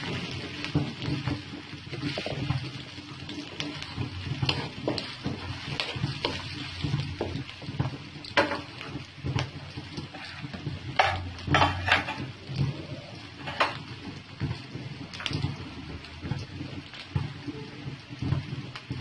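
Sliced onions sizzling steadily in hot oil in a frying pan. A spatula stirs them, scraping and knocking against the pan several times, most sharply in the middle.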